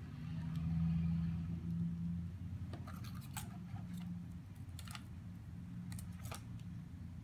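Handling noise as hands press photo corners and a photo onto a mat board on a wooden table. A low rubbing rumble is strongest in the first couple of seconds, followed by a handful of sharp clicks and taps.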